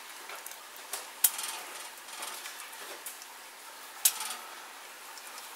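Sharp metallic clinks of a small tin can knocked against the rim of a stainless steel stockpot to shake out its contents: a light tap and a louder clink about a second in, and another loud clink about four seconds in.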